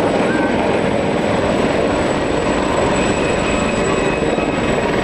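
Military helicopters, an AgustaWestland AW139 and an Aérospatiale Gazelle, flying low: steady rotor and turbine engine noise with a fast pulsing beat.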